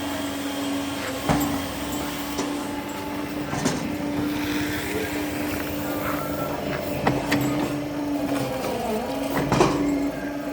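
Electric motor of a small backhoe running with a steady hum, which sags briefly about eight and a half seconds in, with several sharp metallic knocks from the machine.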